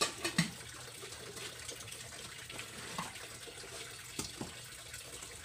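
Water trickling and splashing in a basin as fish is washed by hand, with a few light knocks.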